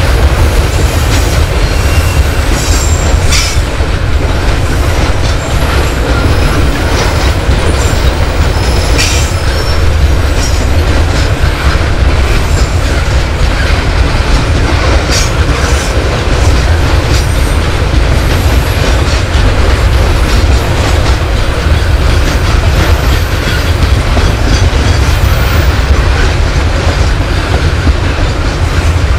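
Coal-loaded hopper wagons of a long freight train rolling past on a curve: a steady heavy rumble of steel wheels on rail, with faint high wheel squeal coming and going and a few sharp clacks.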